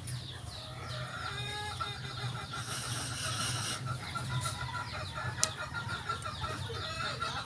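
Chickens clucking, a rapid run of short repeated calls over a steady low hum. A brief hiss comes about three seconds in, and a sharp click a little after five seconds.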